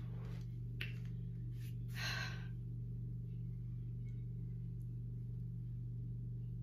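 A steady low hum, with a few short breathy sounds over it. The loudest comes about two seconds in: a heavy exhale from someone winded after exercise.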